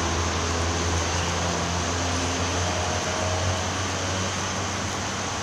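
Steady background noise: an even hiss over a low hum.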